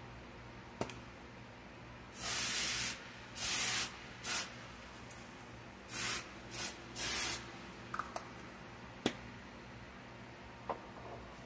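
Aerosol cooking spray can spraying onto a parchment-lined baking pan in six short hissing bursts, the longest under a second, with a few light clicks and knocks in between.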